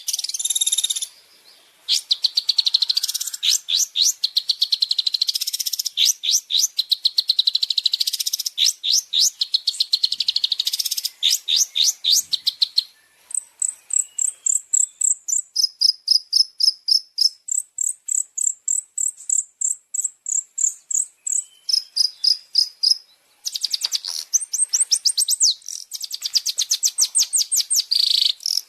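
Songbird singing a fast run of sharp, high chirps, briefly broken about a second in. Around the middle it changes to a slower series of clear notes switching between a higher and a lower pitch, and near the end the fast chirping returns.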